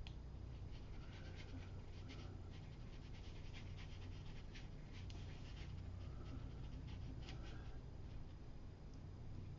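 Faint scratching and dabbing of a watercolour brush on rough paper, in quick short strokes, over a low steady hum. A few faint short rise-and-fall sounds come through about a second in, around two seconds in, and twice more later.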